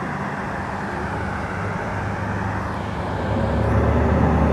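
Passenger boat's engine running with a steady low hum under a rushing noise, growing louder about three seconds in as the boat manoeuvres at a small dock.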